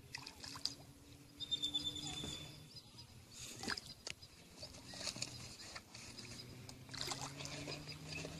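A fish thrashing at the surface of a lake, making faint, irregular splashes.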